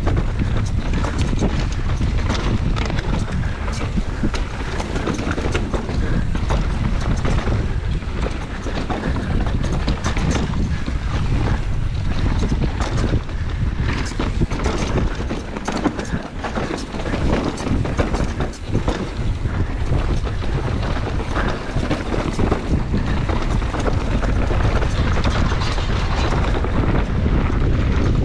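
Wind rushing over the microphone of a camera on a downhill mountain bike ridden fast, with tyre noise and a constant rattle of knocks as the bike runs over rough dirt and rocks.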